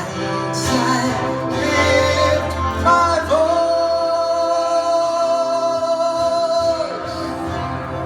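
Live worship music: singing over instrumental accompaniment, with one long note held from about three seconds in for several seconds.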